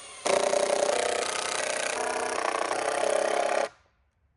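Cordless impact driver running for about three and a half seconds, driving a screw into framing lumber, with a rapid hammering rattle that shifts pitch as the screw goes in, then stops suddenly.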